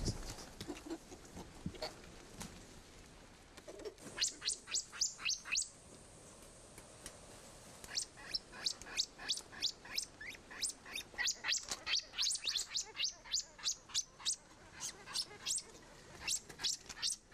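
High-pitched chirping calls in quick runs of sharply falling chirps, about five a second. One short run comes about four seconds in, and the calls go on almost without a break from about eight seconds in.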